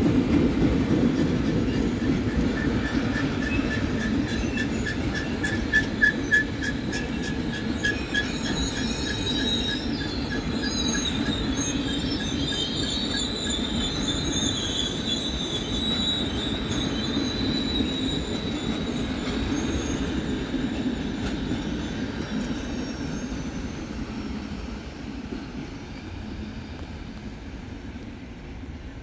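Canadian Pacific passenger cars rolling past with a steady rumble from the wheels and high-pitched wheel squeals, with a run of clicking over rail joints in the first several seconds. The sound fades as the last car pulls away near the end.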